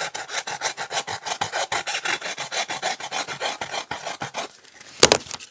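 Sandpaper rubbed over polystyrene foam in quick back-and-forth strokes, several a second, stopping about four and a half seconds in. About five seconds in comes one loud knock as the camera falls onto the table.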